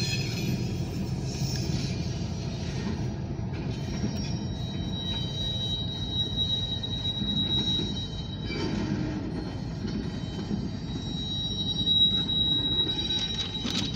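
Freight train of covered hopper cars rolling past with a steady low rumble. From about four seconds in, the wheels squeal with a thin, steady, high-pitched tone. Near the end the sound swells as the locomotive draws level.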